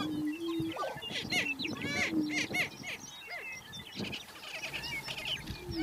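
Male prairie-chickens displaying on a lek: short low, steady booming notes, with a busy chorus of high cackling and whooping calls over them.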